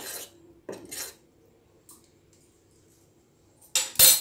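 Metal spoon scraping and clinking against a steel saucepan of hot milk while stirring, with a couple of light clicks. Then a quiet stretch, then a sharp, loud metal clatter near the end.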